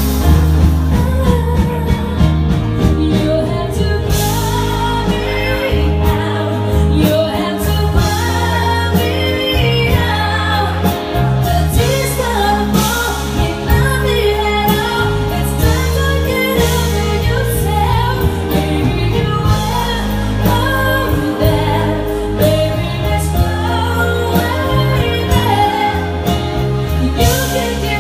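Live pop song performed with a band backing: a singer, likely a woman, singing over steady bass and drums, heard through the venue's sound system.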